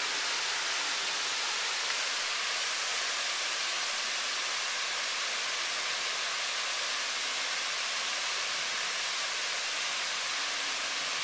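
Steady, unbroken hiss of rushing water.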